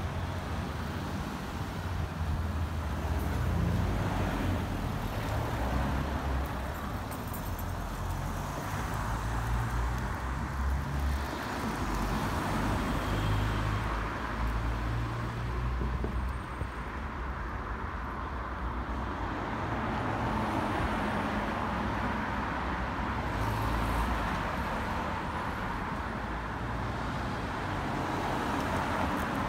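Road traffic: cars driving past, engine and tyre noise swelling and fading over a continuous low rumble.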